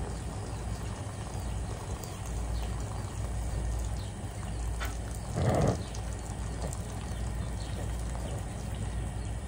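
Boiling water being poured out of a pot through a wire strainer basket onto the ground, straining the cooking water off boiled pokeweed greens, with one brief louder gush about halfway through over a steady low outdoor rumble.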